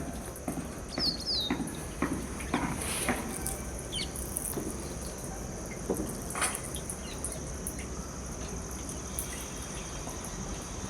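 Outdoor ambience: a steady high-pitched insect drone, a few short bird chirps about a second in and again around four seconds, and scattered light knocks.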